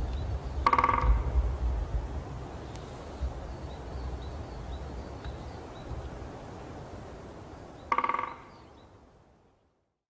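A woodpecker drumming: two short, rapid rolls, one about a second in and one near the end, over a low wind rumble and faint high bird chirps. The sound fades out shortly before the end.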